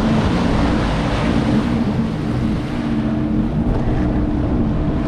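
Sea-Doo personal watercraft engine running steadily while underway, over the rush of water and wind buffeting the microphone.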